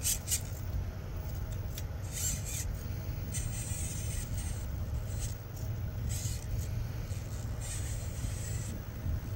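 A small electric RC rock crawler driving up rock, its motor and gears whirring in short stop-start bursts, two of them held for about a second, over a steady low rumble.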